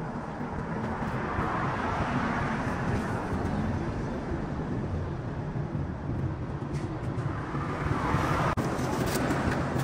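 Road vehicle noise: a steady engine rumble, with passing traffic swelling about two seconds in and again near the end.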